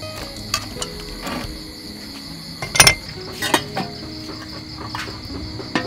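Crickets chirring steadily at a high pitch, with a few sharp metallic clanks of a steel cooking pot's lid and utensils, the loudest about three seconds in.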